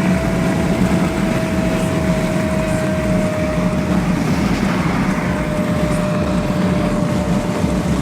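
Steady noise of a vehicle at high motorway speed: engine drone with road and wind rush, and a faint held tone that sinks slightly in pitch.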